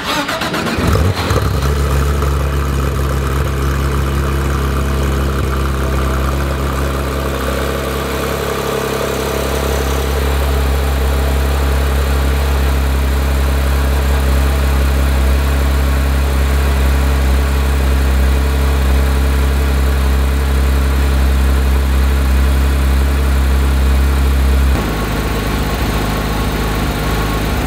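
Porsche 911 GT3 RS's naturally aspirated 4-litre flat-six starting cold: a burst as it cranks and catches, then a steady, loud fast idle. Near the end the idle drops suddenly to a lower, settled idle.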